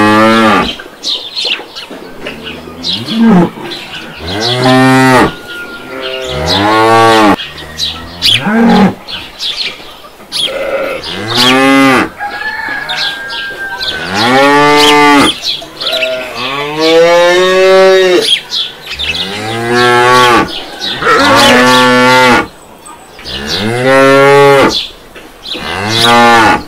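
Cows mooing over and over: about a dozen long moos, one every second or two, each rising and then falling in pitch, with one longer moo about two-thirds of the way through.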